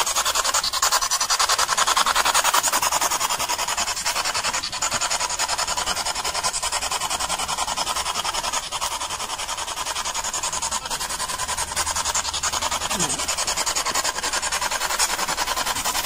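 Steady hiss of static with a fast, even fluttering pulse, running without a break.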